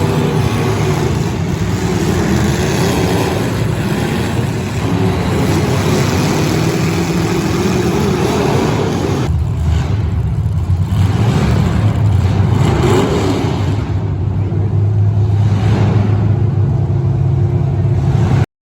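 Demolition derby car engines running and revving loudly. The sound cuts off suddenly near the end.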